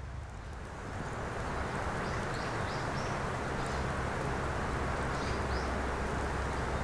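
Outdoor ambience of distant sea waves: a steady rushing that swells about a second in, with a few short bird chirps over it.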